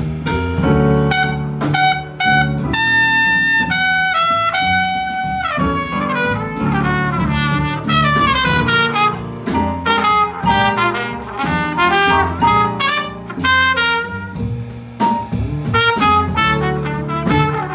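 Live jazz trumpet solo over upright bass and drums: a few held notes near the start, then quick runs of notes up and down.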